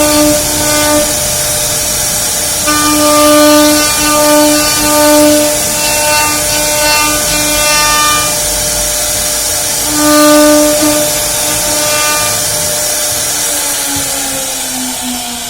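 Small CNC machine running: its stepper motors whine in steady tones that start and stop as the axes move, over a steady hiss. Near the end the tone glides downward as a move slows.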